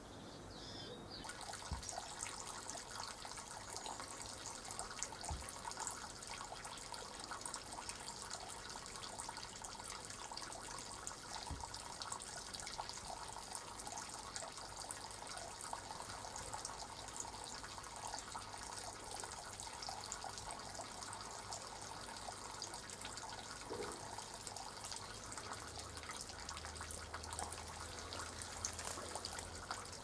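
Water from a garden tap running and splashing into a shallow puddle, a steady trickle with the patter of drops. It starts about a second in.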